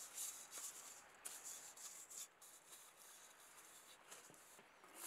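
Faint swishing and rubbing as a bundle of pine needles is worked around inside a wet stainless steel bowl, in irregular soft strokes.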